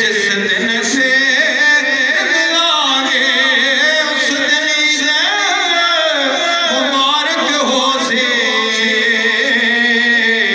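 A man's solo voice singing Islamic devotional verse into a microphone, amplified through a PA system, in long wavering melodic lines.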